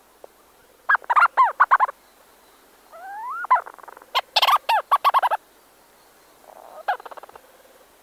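Two Leach's storm petrels calling close up inside their burrow: rapid chattering call phrases in three bouts, about a second in, loudest around the middle, and fainter near the end. A short rising note comes just before the middle bout.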